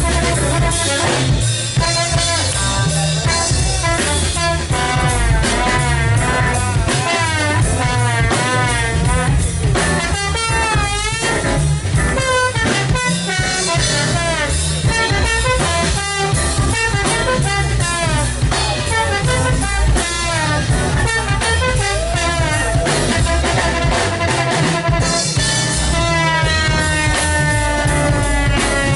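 Live jazz band playing: drum kit, keyboard and trombone, with a woman singing. The wavering melody lines over a steady drum beat end in falling pitch glides near the end.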